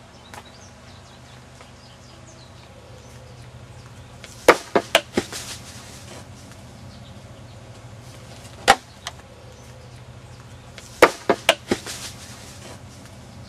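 Sharp clicks and knocks in small clusters over a steady low hum: four quick ones about four and a half seconds in, two more a few seconds later, and a run of four or five near the end.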